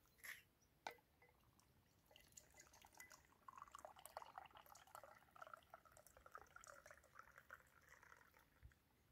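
A drink is poured from a black insulated flask into a glass cup: a faint, fluttering trickle of liquid for about six seconds, after a couple of light clicks near the start.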